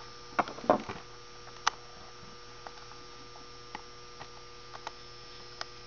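Light clicks and taps of small metal hardware, a washer and screw, being handled while fitting the cable roller on an EZ-Boot hoof boot. There is a cluster of taps in the first second, a sharp click just before two seconds in, then scattered faint ticks, all over a steady electrical hum.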